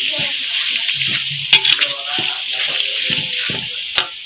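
Chilli spice paste sizzling in a metal wok while a metal spatula stirs it, scraping along the pan. There are two sharp clacks of the spatula against the wok, about a second and a half in and near the end.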